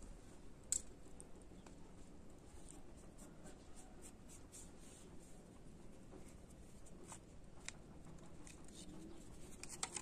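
Bare hands scratching, scooping and crumbling dry, stony garden soil, with faint crackling and scattered small ticks. A single sharp click comes about a second in, and a quick run of clicks near the end.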